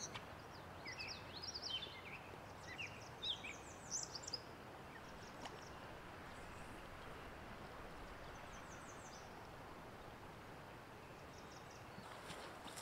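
Songbirds calling over a faint, steady rush of flowing stream water: a cluster of quick chirps and whistles in the first few seconds, then a few brief high trills later.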